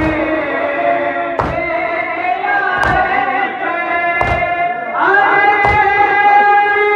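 A noha (Shia mourning lament) being sung, with a crowd striking their chests in unison in matam, a hand-slap thump about every one and a half seconds, five in all. The singing grows louder with a new, higher phrase about five seconds in.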